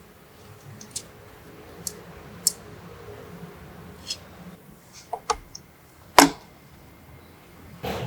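A series of light, irregular clicks and taps over a faint low hum, with a louder knock about six seconds in and another near the end: the sounds of small parts or tools being handled.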